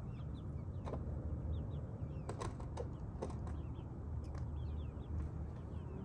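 A few sharp knocks and clatters from the wooden chicken coop's door and latch being handled, over a steady low rumble, with short bird chirps throughout.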